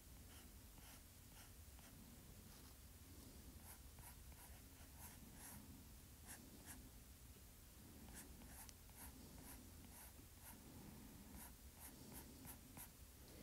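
Faint, irregular ticks and light scratches of a stylus tapping and stroking on a tablet's glass screen, over a low steady hum.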